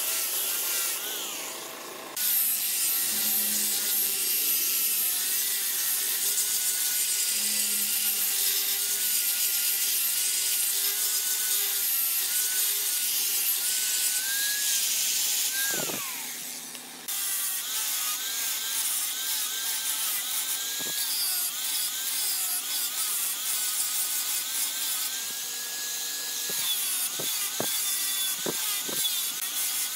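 Handheld electric angle grinder with a sanding attachment sanding a turned wooden piece: a steady abrasive rasp over a motor whine that wavers as the pressure changes. The sound dips about two seconds in, and around 16 s the motor winds down with a falling whine before starting up again; a few sharp clicks come near the end.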